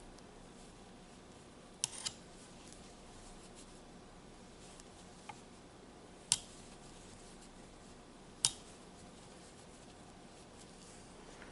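Aluminium crochet hook working yarn: a few light, sharp clicks a couple of seconds apart over a faint steady hiss.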